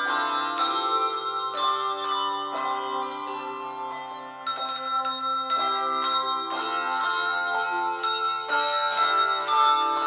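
A handbell choir playing a tune on tuned handbells: notes and chords struck on a steady beat of about two a second, each bell ringing on between strikes.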